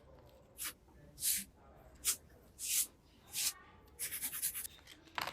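Small toys and their packaging being handled: five short scraping, rustling strokes a little over half a second apart, then a quick crackly run about four seconds in.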